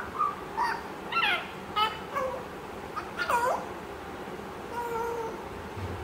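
African grey parrot vocalizing: a quick series of short calls that slide in pitch through the first three and a half seconds, then a steadier whistled note about five seconds in.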